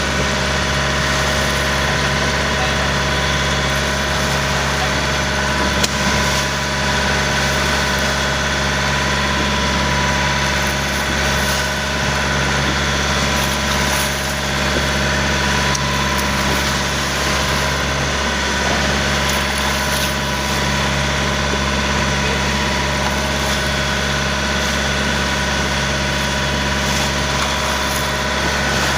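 Tour boat's engine running at a steady, unchanging speed.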